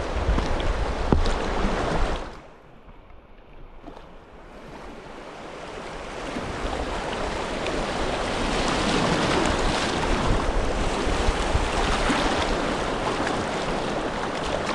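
Rushing river water with wind buffeting the microphone. It drops away sharply about two seconds in, then builds back up over the next few seconds to a steady rush.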